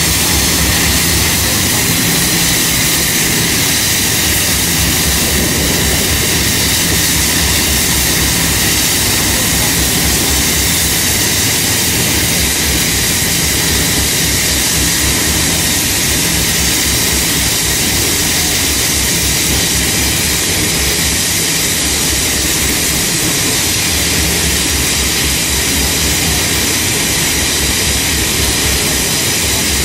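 GWR 1600 class pannier tank locomotive No. 1638 standing with steam blowing off, a loud, unbroken hiss.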